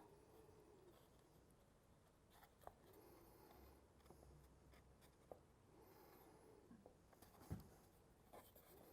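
Near silence with faint handling sounds: light scratching and a few scattered small clicks as small parts are worked by hand.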